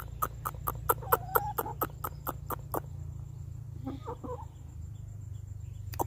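Aseel rooster clucking: a quick run of about a dozen short, sharp clucks, roughly five a second, for the first three seconds. A few softer calls follow about four seconds in.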